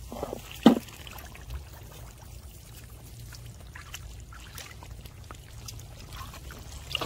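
Bare feet wading and sloshing through shallow muddy water among plants, with one louder splash under a second in. A steady low rumble runs underneath.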